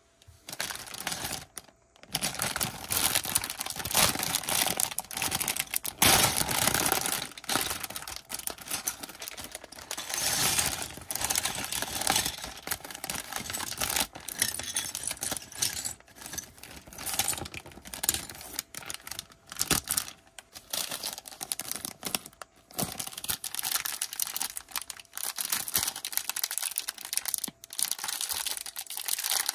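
Plastic bags crinkling and small plastic Lego pieces clicking and rattling as they are handled, a busy run of clicks and crackles.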